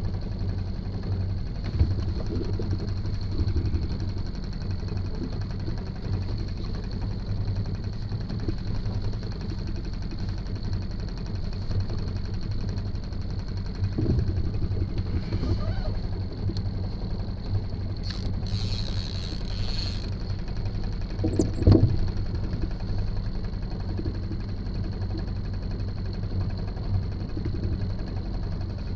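Boat engine idling, a steady low hum. There is a brief hiss about 18 seconds in and a sharp knock just before 22 seconds.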